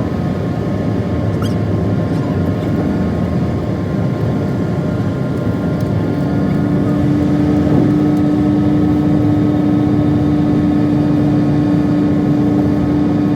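Steady road and engine noise heard inside a moving car, with a low hum that grows louder about halfway through.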